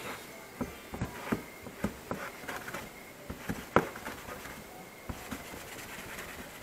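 Irregular light clicks and knocks as a curved steel knife blade is wiped down with a cloth and shifts against a tiled worktop. One sharper knock comes a little before four seconds in.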